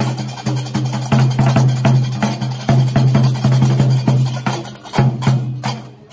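Gnawa street musicians clacking qraqeb, large iron castanets, in a fast even rhythm over a beating drum. The music fades away toward the end.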